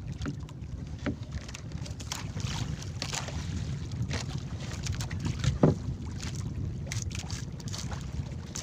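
Steady wind rumbling on the microphone aboard a small outrigger fishing boat at sea. Scattered light knocks and clicks come from the hull and the handline being worked, with one louder knock a little past halfway.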